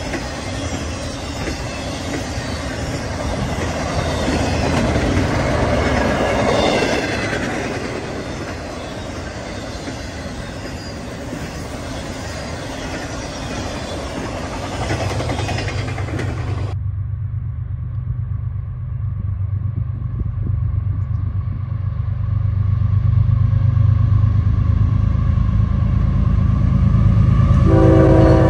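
Intermodal freight cars rolling past, a steady rumble and clatter of wheels on the rails. After a cut about two-thirds in, the low drone of an approaching CSX diesel locomotive builds, and its multi-tone horn sounds near the end.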